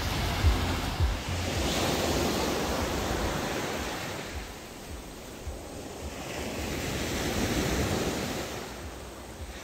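Ocean waves washing onto a beach, two swells of surf rising and falling about five seconds apart, with wind buffeting the microphone in low thumps in the first second.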